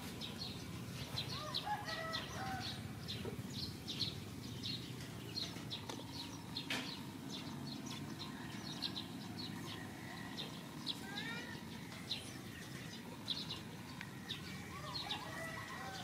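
Outdoor ambience of small birds chirping over and over, with a few short gliding bird calls now and then, over a steady low rumble.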